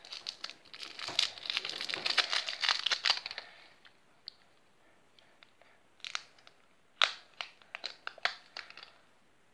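A twist-wrapped sweet's wrapper crinkles as it is unwrapped by hand, densely for about three and a half seconds. After a pause come a few scattered crinkles and small clicks.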